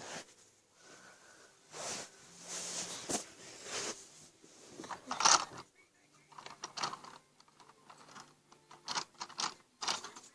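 Irregular clicks, scrapes and rustles of small objects being handled, with a louder scratchy stroke about five seconds in.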